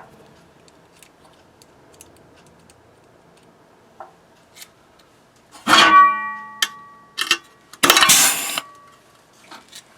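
Pneumatic rivet gun setting a 4 mm rivet: a loud metallic clank that rings for about a second, a couple of short clicks, then a sharp burst of air hiss lasting nearly a second. The tool pulls the rivet with a violent snap, and there is no way to turn its power down.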